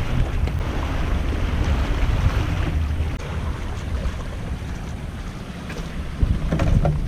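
Wind buffeting the microphone outdoors, a steady low rumble, with a couple of short knocks near the end.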